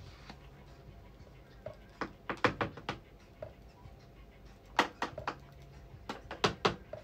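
Sharp clicks and taps of kitchen utensils and containers being handled at the counter, in three quick clusters: about two seconds in, about five seconds in and again just after six seconds.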